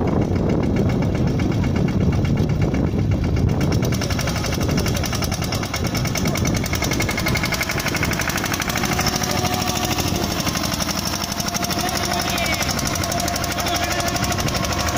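Captain mini tractor's diesel engine running steadily with a rapid knocking beat; about four seconds in the sound turns brighter and harsher.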